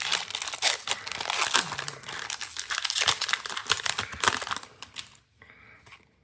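Foil Pokémon booster pack wrapper crinkling and crackling in the hands as the pack is opened, dense quick crackles that die away about five seconds in.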